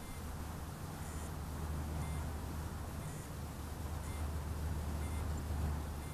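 Distant paramotor engine running with a steady low drone. A faint high chirp repeats about once a second.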